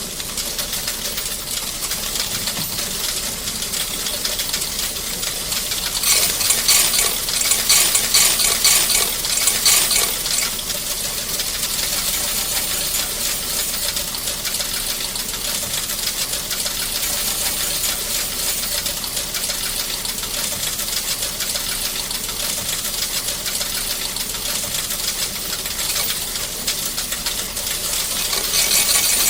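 Coin-counting machine running, coins rattling and clinking rapidly through it in a continuous metallic chatter. It is louder and denser from about six to ten seconds in, then settles into a steady rattle that swells again near the end.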